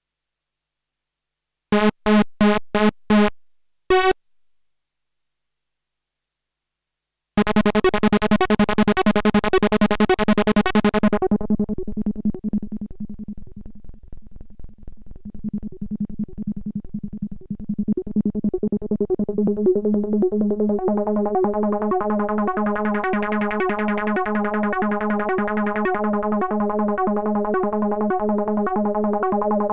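Behringer MS-1 analog synthesizer: a few short staccato notes, then a fast sequenced run of repeated short notes on one low pitch, each note with a clicky envelope attack. Its filter is swept, closing to a dull tone a few seconds into the run and opening again with a resonant edge, the classic SH-101-style filter sound.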